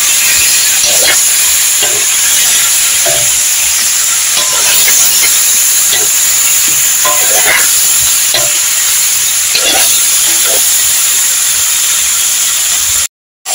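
Potatoes, egg and green chillies sizzling in a frying pan, with a spatula stirring and scraping about once a second. The sound drops out briefly near the end.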